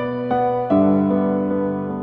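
Background piano music: sustained notes and chords, with a new note coming in about a third of a second in and a fuller chord a little later.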